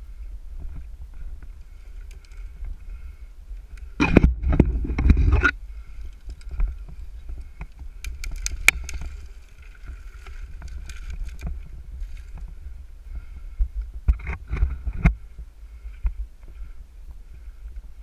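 A tree climber shifting on his ropes, with scraping and rubbing against the trunk and gear in two loud bouts, about four seconds in and again near fourteen seconds, and a few sharp clicks in between, over a steady low rumble on the helmet microphone.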